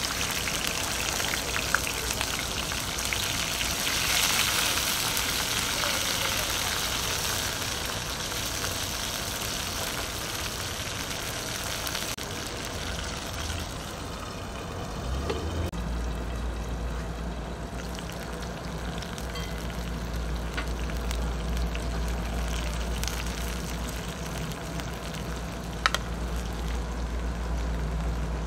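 Sliced onions and sweet peppers sizzling in hot oil in a frying pan over charcoal. The sizzle is loudest in the first few seconds after they hit the oil, then settles to a steadier sizzle.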